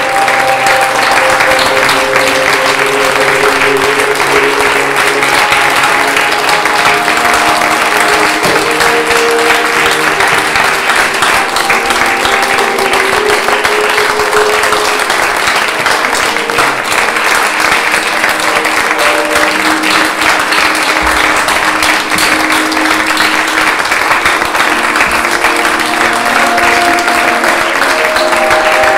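Theatre audience applauding steadily through a curtain call, with music of long held notes playing underneath the clapping.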